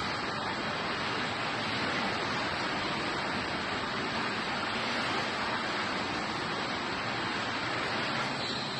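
Steady rushing noise of an automatic in-line pallet stretch-wrapping machine running, even throughout with no distinct beat or tone.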